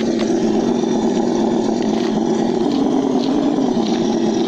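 ESS One Plus engine-sound module on a Losi Baja Rey RC truck playing a simulated engine idle through its speaker, a steady even drone while the truck sits stopped.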